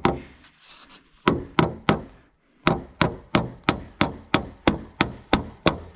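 Hammer driving nails through a galvanized steel joist hanger into a wooden floor joist. Three quick blows, a short pause, then a steady run of about three blows a second, with a faint high ring carrying between the blows.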